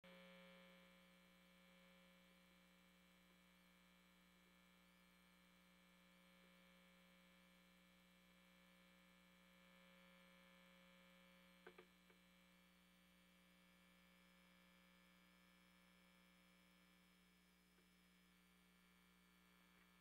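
Near silence: a faint, steady electrical hum with a few faint clicks a little past the middle.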